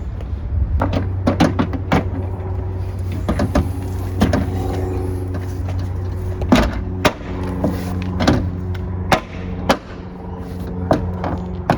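A series of irregular sharp clicks and knocks from hands working on the car's rear hatch, over a steady low hum.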